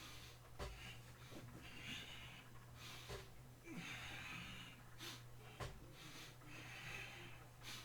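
A man breathing hard from exertion during a power-tower exercise: long hissing breaths about every two to three seconds, with light clicks and knocks between them, over a low steady hum.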